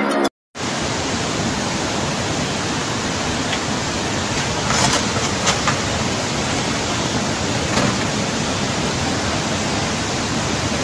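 Fast-flowing floodwater rushing through a street: a steady, even rush of water, with a few brief louder knocks around five and eight seconds in.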